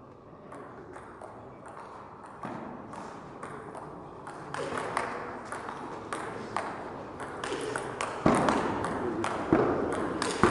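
Table tennis rally: the ball clicking sharply back and forth off bats and table in quick succession. Crowd voices swell toward the end.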